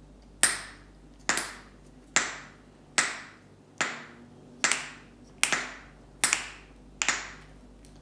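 Small fidget toys pushed together by hand and released, each release giving a sharp pop: about ten, evenly spaced, a little under one a second.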